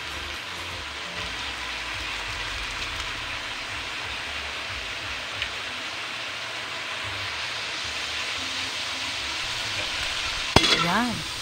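Pork chop slices with onion and garlic frying in a steel wok: a steady sizzle that grows a little louder in the second half. A single sharp knock near the end.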